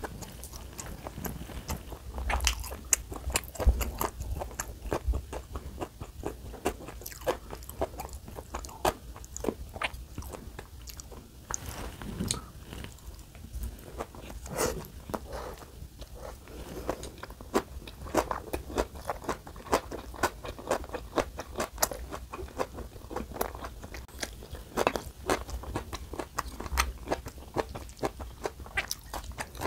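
Close-miked ASMR chewing and crunching of Korean flat dumplings and raw vegetables such as bean sprouts, cabbage and carrot: a dense run of small crunches and wet mouth clicks.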